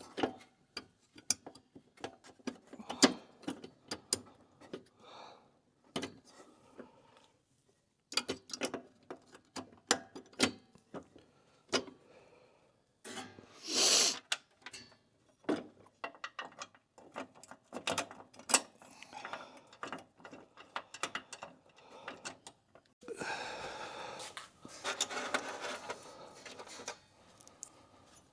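Scattered clicks, knocks and clatter of hand tools and bumper parts as brackets are being swapped on a pickup bumper. There is a brief louder burst of noise about halfway through and a steadier rough sound lasting about three seconds near the end.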